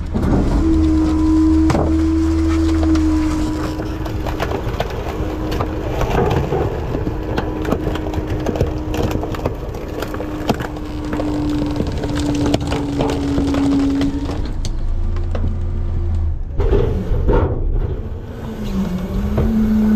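Front-load garbage truck running, its engine holding a steady pitch, with frequent metallic clanks and rattles over a heavy low rumble. The engine note shifts about three-quarters of the way through and dips near the end.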